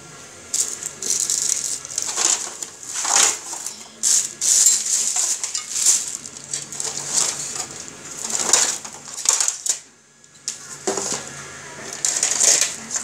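Hands rummaging through loose electronic parts and metal scrap on a workbench, with irregular rattles and clinks. There is a brief lull about ten seconds in.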